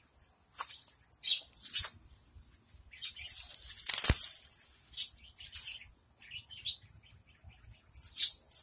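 Leaves and stems rustling as weeds are handled and pulled among ivy ground cover. A louder brushing swell peaks in a knock about four seconds in, and short high chirps come throughout.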